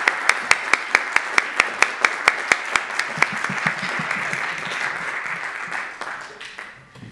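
Audience applause in a concert hall, with loud single claps close by at about four to five a second for the first three seconds. The applause dies away over the last couple of seconds.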